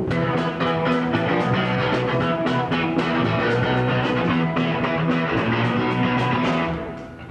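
Rock music with guitar and a steady beat, fading down just before the end.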